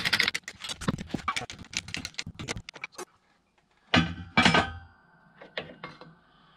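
Steel parts clicking and clattering in a shop press as a driveshaft center support bearing is pressed on, then two loud metal knocks about four seconds in, followed by a faint ringing tone and a few lighter knocks.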